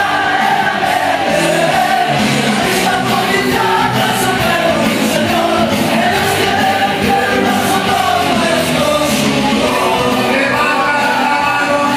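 Live band music played loud in a nightclub: a singer's melody over amplified instruments with a steady beat.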